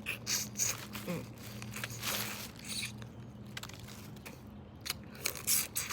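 Boiled crawfish shells and claws being cracked and peeled by hand, with chewing: irregular sharp cracks and crackles over a steady low hum.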